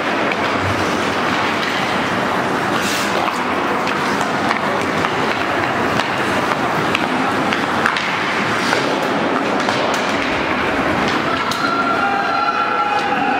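Ice hockey play on an indoor rink: a steady wash of skate blades scraping the ice, broken by sharp clacks of sticks on the puck. A few pitched calls come in near the end.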